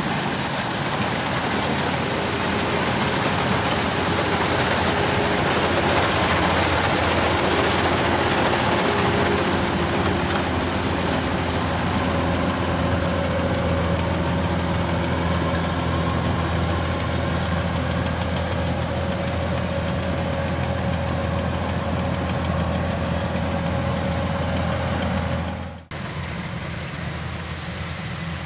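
Kubota DC-105X rice combine harvester running steadily as it cuts and threshes rice, its engine and threshing drum giving a constant drone. About 26 seconds in the sound breaks off abruptly for a moment, then carries on a little quieter.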